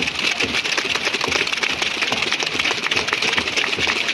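Stadium crowd clapping steadily, a dense patter of many hands.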